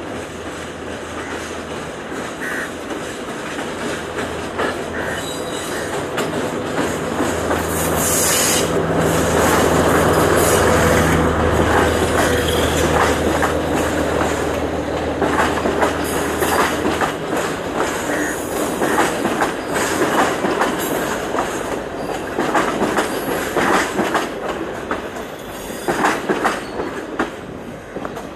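Class S10 diesel multiple unit passing close by. Its diesel engine's low drone builds, is loudest around ten seconds in and cuts out at about seventeen seconds. After that the carriages' wheels clatter over rail joints and points in irregular sharp clicks.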